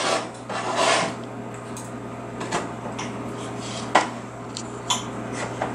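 A knife and fork clicking and scraping against a plate while cutting a piece of chicken, with a few sharp clinks about two and a half, four and five seconds in, over a steady low hum.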